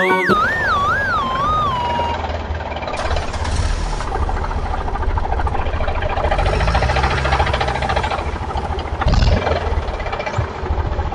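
A wobbling, falling whistle sound effect fades out in the first two seconds. A motor then runs steadily with a fast rattle and a low rumble, surging briefly near the end.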